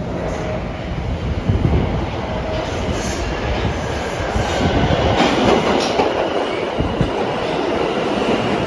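New York City Subway L train pulling into an underground station, its wheels clattering over the rails with clicks at the rail joints and a light high squeal, growing louder as the cars come alongside.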